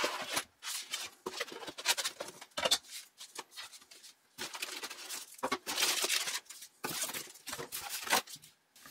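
Unboxing handling noise: a cardboard box, a foam-sleeved unit and plastic-bagged parts being pulled out and set down, with irregular rustles, crinkles and scrapes in short bursts and brief pauses.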